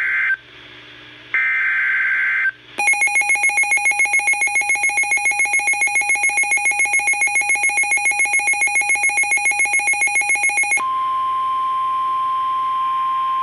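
Emergency Alert System alert on a NOAA weather radio. First come two short bursts of screeching SAME header data tones. Then about eight seconds of a rapidly pulsing electronic alarm beep, and in the last seconds the steady 1050 Hz weather-radio warning alarm tone, which marks a warning being broadcast.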